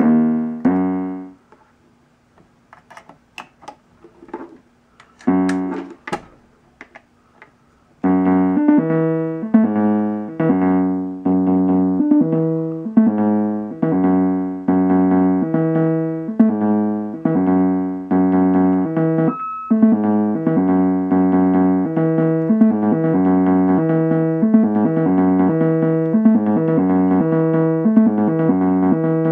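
Moog Werkstatt-01 analog synthesizer playing short notes, then falling nearly quiet for several seconds apart from a few clicks and one brief burst of notes. About eight seconds in, a steady, repeating sequenced pattern of short synth notes starts and keeps running.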